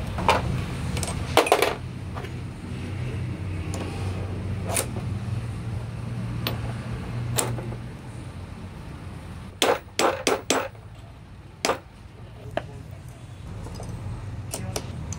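Metal parts of a stripped manual gearbox clinking and knocking as gears, a ball bearing and pliers are handled, a few sharp clinks with a quick run of them about ten seconds in. A steady low hum runs underneath and fades about halfway.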